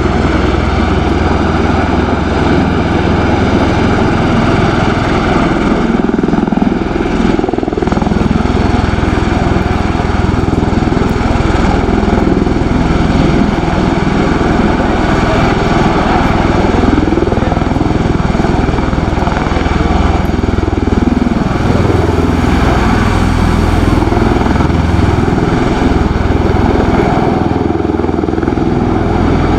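MV-22 Osprey tiltrotor in helicopter mode, its two big proprotors and twin turboshaft engines giving a loud, steady thrum as it hovers and manoeuvres low, with slow rises and falls in pitch as it moves.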